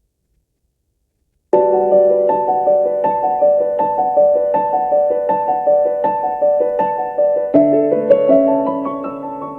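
Shopping-centre hourly time-signal chime, here marking noon, played over an outdoor PA speaker: a piano-like electronic melody of quick, evenly spaced notes starts about a second and a half in. About seven and a half seconds in it shifts to a new chord with a rising run of notes and begins to fade.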